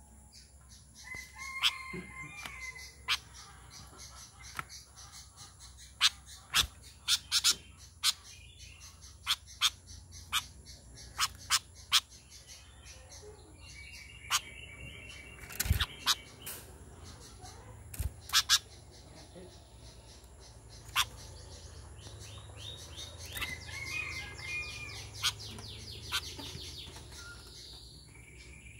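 Caged sooty-headed bulbul giving short bouts of chirping calls three times, the call meant to draw in other bulbuls. Between and over the calls come many sharp taps and knocks, loudest of all, as the bird hops about the cage perches and bars.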